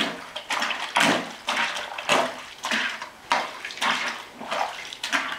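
Plunger pushing clothes down into a bucket of soapy water, sloshing and splashing in repeated strokes about twice a second.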